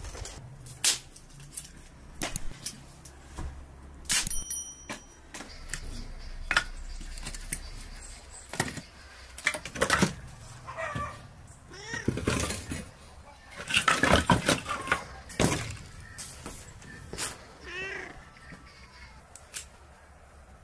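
Split firewood knocking and clattering as pieces are tossed one at a time onto a pile, the loudest knocks a little past the middle. Twice, short wavering animal calls cut in between the knocks.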